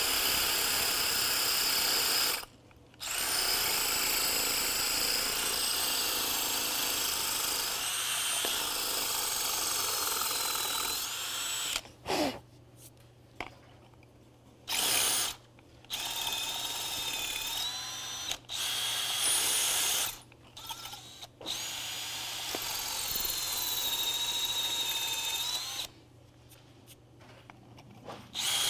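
Drill boring into a concrete floor with a standard Tapcon masonry bit, without hammer action: the bit grinds into the concrete over the whine of the motor. It runs in stretches, stopping briefly several times in the second half and once more near the end.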